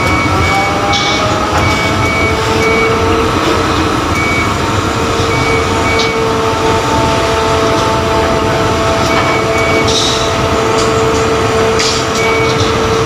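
Tower crane machinery running steadily as heard from inside the operator's cab, with a motor whine at several pitches that settles into one held tone about two seconds in. A high warning beep sounds in short repeated pulses, and a few sharp clicks stand out, one about a second in and another near ten seconds.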